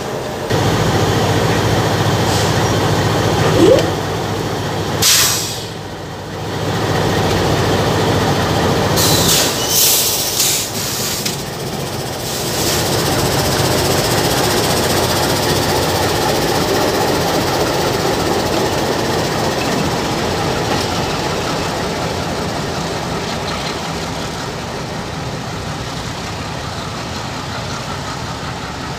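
Diesel locomotives passing at close range, engines running with a low steady drone under wheel and rail noise. There are short hissing bursts of air about five and ten seconds in. The sound eases slightly toward the end as the train draws away.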